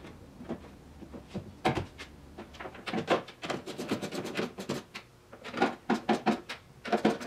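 Handling noise from fitting a tail-light unit to a car's rear panel: irregular clicks, knocks and rattles of the lamp and its fixings, with one sharp knock a couple of seconds in and quick clusters of clicks from about three seconds in.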